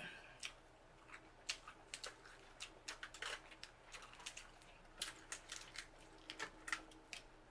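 Close-up eating sounds: an irregular string of sharp clicks and snaps from seafood shells being cracked and picked apart, with wet mouth smacks.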